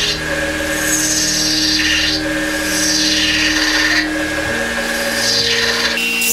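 Wood lathe spinning a cherry-wood blank while a hand-held turning tool cuts it, peeling off long shavings. The cutting hiss swells and fades in repeated strokes about every second as the tool makes pass after pass.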